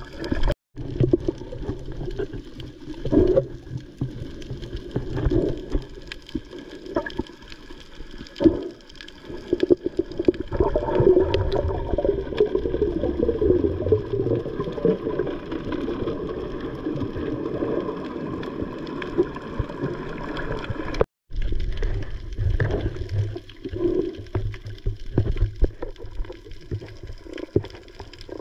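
Muffled underwater sound from an action camera in its waterproof housing while snorkelers swim: water sloshing and bubbling with irregular small clicks. The sound cuts out briefly twice, just under a second in and about two-thirds through.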